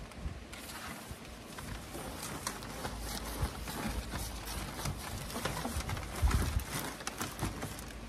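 Rustling and crinkling of a black fabric cover as it is dragged over a portable fridge-cooler and tucked in, with scattered clicks of handling and a dull bump about six seconds in.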